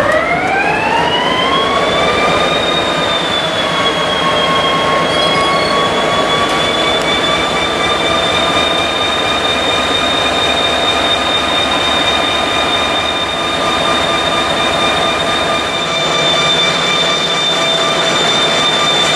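EMD diesel engine of a GP30 locomotive starting up. A high whine, typical of an EMD turbocharger, rises in pitch over the first few seconds and then holds steady over the engine's running noise as it settles to idle.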